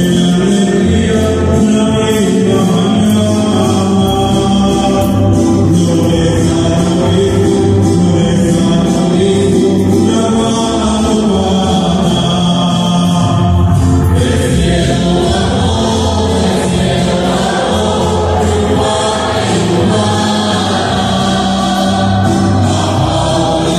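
Music: several voices singing together in held notes over a steady accompaniment, with a bass line that moves from note to note every second or two.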